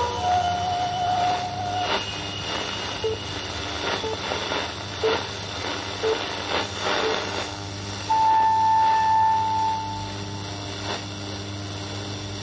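Shortwave radio reception of Bangladesh Betaar on 4750 kHz: steady static hiss and hum from a weak signal under very poor propagation conditions. Thin steady tones come through it, with short tones about once a second in the middle and a longer, brighter whistle about eight seconds in.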